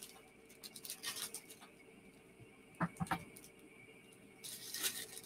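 Faint rustling and crinkling of packaging handled by hand while items are pulled out of a box, with two light knocks about three seconds in.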